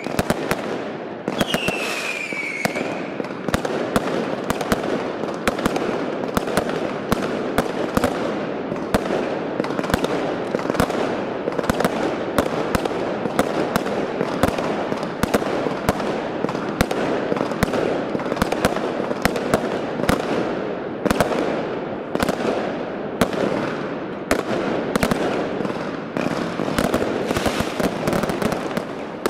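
Consumer firework batteries firing a rapid, continuous salvo: many sharp bangs of launches and bursting shots over a constant crackling. There is a falling whistle about two seconds in.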